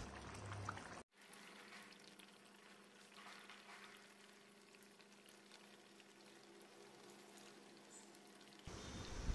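Near silence: faint bubbling of a thick masala gravy simmering in a pan, over a low steady hum. The sound cuts out completely for a moment about a second in.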